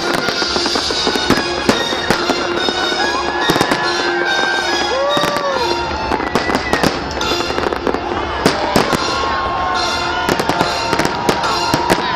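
Fireworks display: many bangs and crackles in quick, irregular succession, with music playing alongside.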